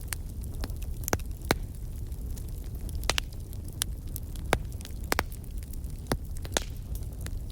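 Wood fire in a fireplace crackling: about ten sharp, scattered pops and snaps over a steady low rumble.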